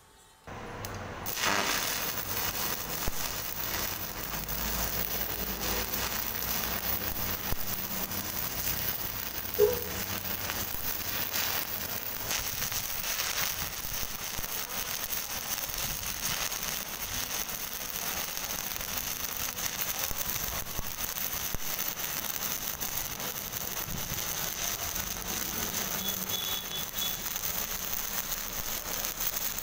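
Electric stick (arc) welding on a steel disc: the electrode strikes an arc about half a second in, and the arc then burns steadily, with a few sharp pops along the way as the circular bead is run.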